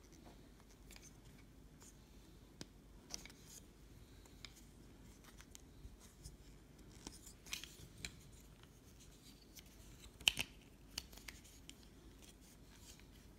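Faint, scattered clicks and light rubbing of a plastic Transformers figure's joints and pegs as it is handled and folded through its transformation, with one sharper snap about ten seconds in.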